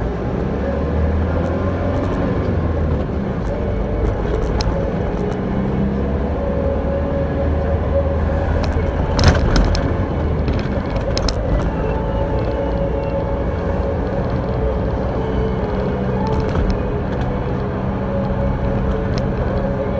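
Delivery truck's engine running and road noise heard from inside the cab while driving, a steady low hum. A sharp clatter about nine seconds in.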